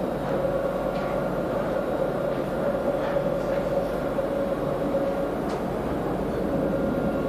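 Dubai Tram car in motion, heard from inside the passenger cabin: a steady running rumble with a steady hum and a few faint clicks.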